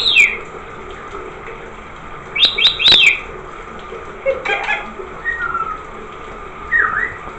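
Rainbow lorikeet chirping in quick clusters of short, falling calls, with a few thin whistles near the end, over the steady hiss of running shower water.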